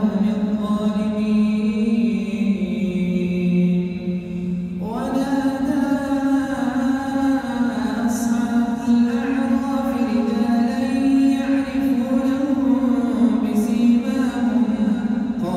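An imam reciting the Quran aloud in the drawn-out melodic tajweed style of the prayer. One voice holds long notes that bend slowly in pitch, and a new phrase begins about five seconds in.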